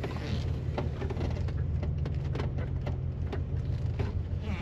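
Mercedes G500's V8 engine running at low speed, heard from inside the cabin as a steady low rumble, with irregular clicks and knocks from the tyres rolling over cobblestones.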